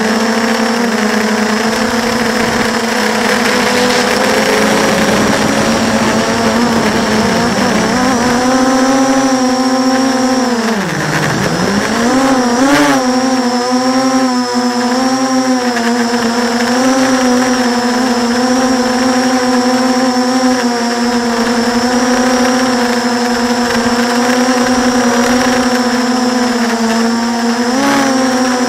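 Brushless motors and propellers of a 6-inch FPV quadcopter, heard through its onboard camera: a steady, loud whine. About eleven seconds in, the pitch drops sharply and then climbs back within a second as the motor speed changes.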